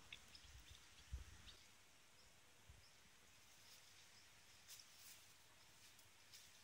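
Near silence: quiet outdoor ambience with a few faint, brief bird chirps and a soft low thump about a second in.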